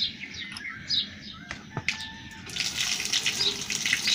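Birds chirping, then from a little past halfway a hiss of rapid, rhythmic spurts: milk squirting as a cow's teat is squeezed by hand.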